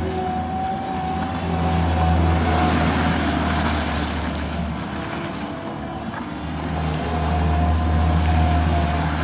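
Gehl skid steer engine running with a steady whine above its low hum, working harder for a few seconds, easing off past the middle, then loading up again.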